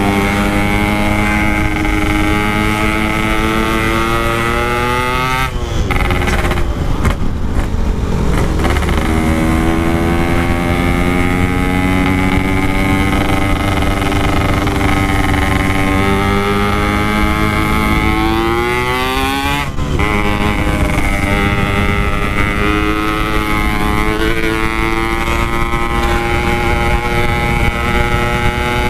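Yamaha RX-King 135cc two-stroke single-cylinder engine running under throttle through a Packing Power exhaust, its pitch climbing steadily as it pulls. The pitch drops and breaks up around six to eight seconds in, climbs again, and shifts sharply about twenty seconds in, as with gear changes.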